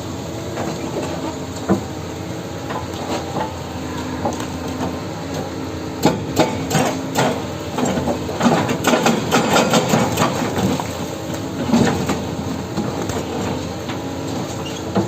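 Doosan excavator's engine running steadily under a string of sharp knocks and clanks, which come thickest in a flurry through the middle.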